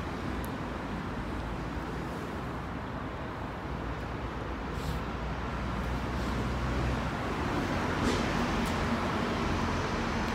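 Steady low rumble of road traffic, growing a little louder from about halfway through, with a few faint clicks.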